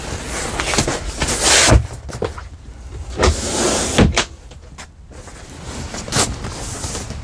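Motorhome dinette cushions and bench parts being handled: fabric upholstery swishing and rubbing, with a few dull knocks as pieces are set in place.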